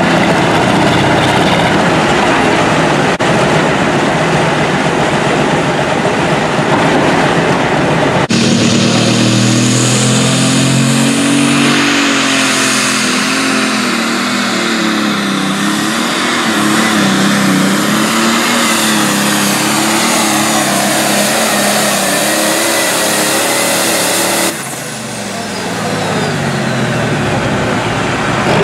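Diesel pulling-tractor engines run at full throttle under load while dragging a weight-transfer sled, the engine pitch wavering as the load changes. The sound cuts abruptly to a different tractor twice. Near the end a tractor runs quieter, then revs up.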